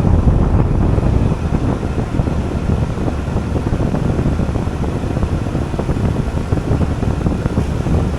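Air-conditioning condensing unit running with a steady loud low hum and rush from its compressor and condenser fan. It is working under high head pressure, about 400 psi, because the closet holding it has reached about 112 degrees.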